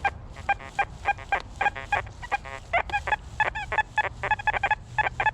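XP Deus 2 metal detector sounding rapid, irregular short beeps through its PWM full-tones audio, several a second, some bending in pitch. This chatter comes from highly mineralized 'hot' ground, which the detectorist says makes the detector run unstable at low discrimination.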